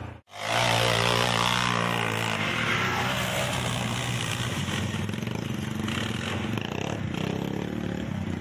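Quad-bike (ATV) engine revving hard as the quad ploughs through a water crossing, with water splashing, then engines running steadily. There is a brief dropout at the very start.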